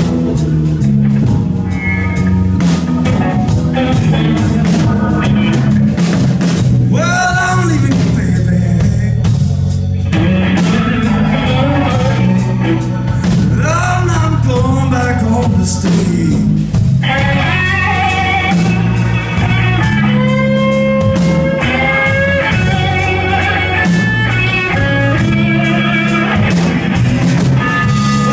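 A live blues band playing: electric guitar, bass guitar, drum kit and keyboard together, loud and continuous, with the guitar's melody bending in pitch.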